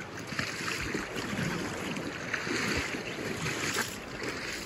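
Fast river current rushing and rippling past the bank, with wind rumbling on the microphone.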